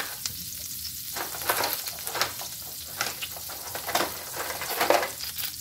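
Butter sizzling in a hot stainless steel skillet with thyme leaves: a steady hiss broken by irregular crackles and pops.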